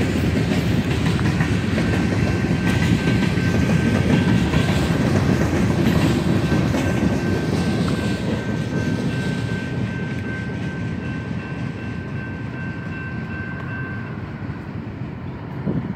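Freight train cars rolling past on the rails, their noise fading over the second half as the end of the train moves away. A steady high-pitched crossing bell rings over it and stops near the end.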